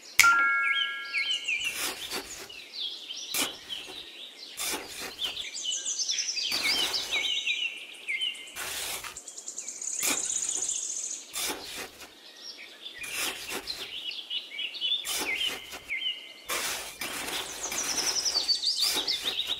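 Birds chirping and singing in repeated quick phrases, with short scraping sounds now and then from a small tool digging into sand.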